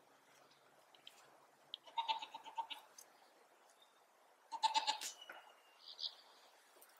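Icelandic sheep bleating twice, about two and four and a half seconds in, each bleat wavering.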